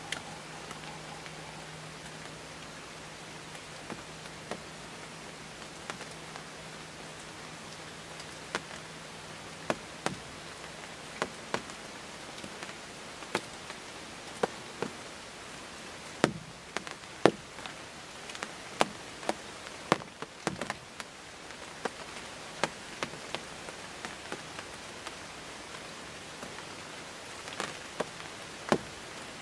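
Light rain: a steady hiss with irregular raindrops tapping close by, the taps coming thicker in the middle.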